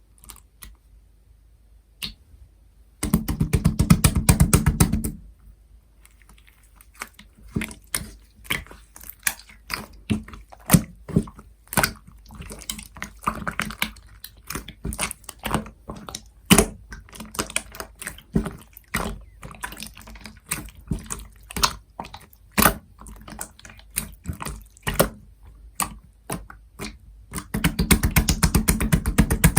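Clear slime mixed with scoop clay being squished and kneaded by hand, giving wet, sticky clicks and pops at an irregular pace. There are two stretches of fast, dense crackling, one a few seconds in and one near the end.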